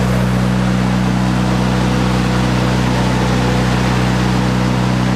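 Miller Bobcat 250 engine-driven welder-generator running at a steady speed, a loud, even engine drone that stays unchanged throughout.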